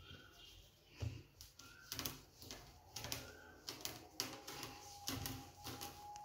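Faint, irregular taps and soft knocks of hands rolling a log of spiced mashed potato on a marble countertop.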